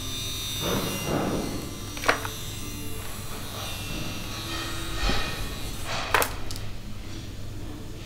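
Steady low electrical hum with two sharp clicks, one about two seconds in and one about six seconds in, and a soft rustle about a second in.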